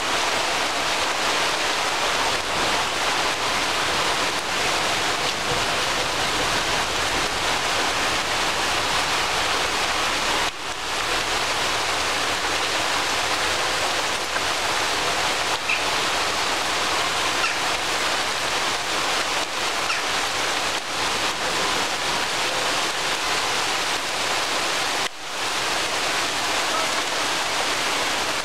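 Rain pouring steadily onto tree foliage, an even hiss of falling water that dips briefly twice.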